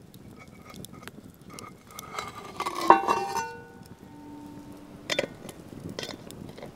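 Ostrich eggshell crackling as it is broken open over a cast iron pot, then a loud clink against the pot about three seconds in, with a ringing tone that hangs on for a second or two. A sharp knock follows about five seconds in.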